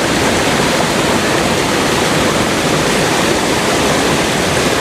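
Creek waterfall: a loud, steady rush of falling water.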